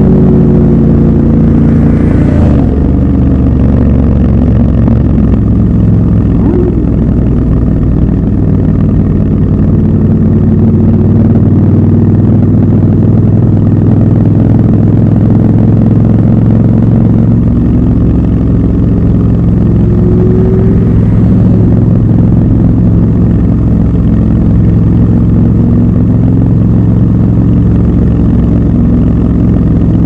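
Triumph Scrambler 1200 XC's 1200 cc parallel-twin engine running steadily at cruising speed, heard from the rider's seat, with the revs rising near the end.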